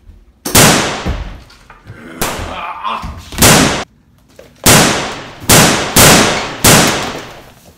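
A string of seven loud gunshots, shotgun blasts each with a long fading tail: a few spread out over the first four seconds, then four in quick succession.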